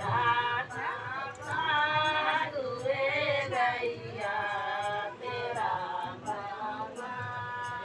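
A group of women singing a traditional Bihari wedding folk song together without instruments, in long held notes that bend in pitch, with short breaks between phrases.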